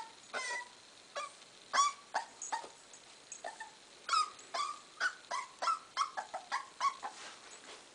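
Corgi puppy whining in a string of short, high whimpers as it hesitates at the edge of a stair step, unsure about going down. The whimpers come faster in the second half.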